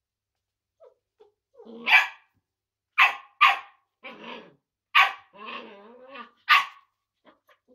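Smooth collie puppy barking at an unfamiliar object: about five short, sharp barks, with low growling between them in the second half.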